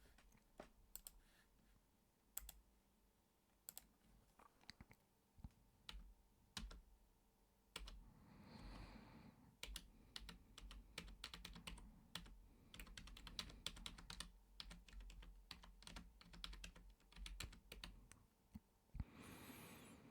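Computer keyboard typing, faint and close: scattered single keystrokes at first, then quicker runs of typing in the second half. Two soft breaths come in, about halfway through and near the end.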